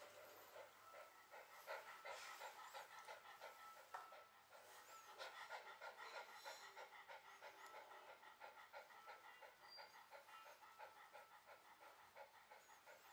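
Shiba Inu panting steadily with its mouth open, faint and rhythmic at about three breaths a second.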